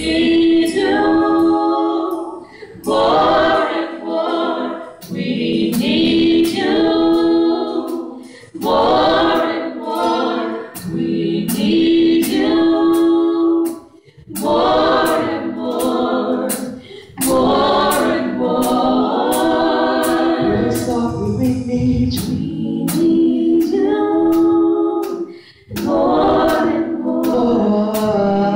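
Several women's voices singing a gospel song in harmony into microphones, unaccompanied, in sustained phrases a few seconds long with short breaths between them.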